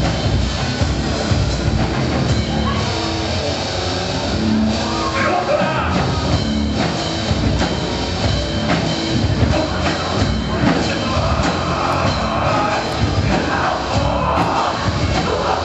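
A live rock band playing heavy metal, with electric guitar, bass guitar and drum kit, loud and continuous.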